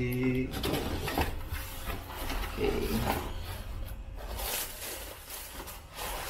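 Tissue paper rustling and crinkling as it is pulled open and handled inside a cardboard shoebox to free a pair of sandals.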